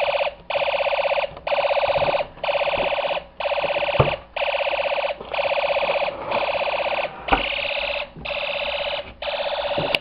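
Homemade fire alarm system's horn sounding a harsh buzz in pulses about once a second, the panel in alarm after the pull station was pulled. Two sharp clicks come about four and seven seconds in, from keys working the panel's lock.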